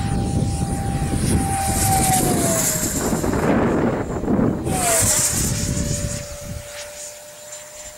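F-35 jet flying overhead: a steady engine whine whose pitch drops twice, over a gusty rumble of wind on the microphone.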